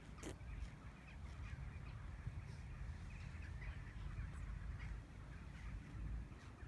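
Wind buffeting the phone's microphone as an uneven low rumble, with scattered short bird calls over it.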